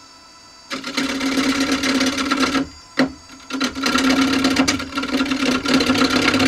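Wood lathe spinning a sapele blank while a hand-held turning tool cuts into it: loud rough scraping that starts under a second in, stops briefly with a click around the middle, then resumes. The lathe motor's steady hum is heard alone at the start.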